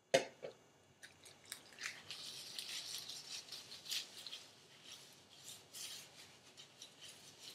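A sharp tap just as it begins, then hands rubbing protein treatment through the hair: an irregular rustling, rasping rub that comes and goes.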